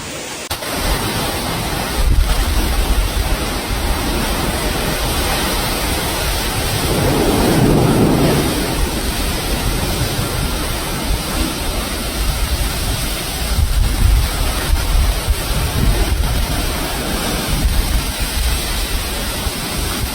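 Gale-force wind with driving rain: a steady, loud rush of noise with a heavy low rumble of wind buffeting the microphone, swelling louder about seven seconds in.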